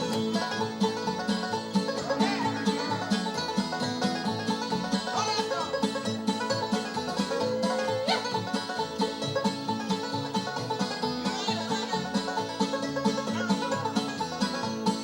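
Live bluegrass band playing an instrumental with a steady fast beat, the banjo out in front over guitar.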